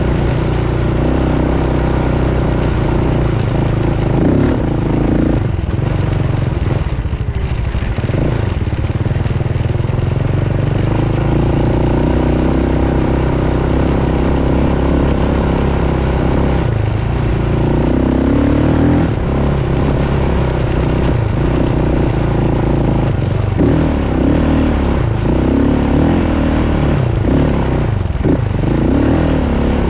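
Engine of a handlebar-steered off-road vehicle running under way, with a steady rushing noise over it. The engine note dips and rises several times as the throttle is eased and opened, most often near the end.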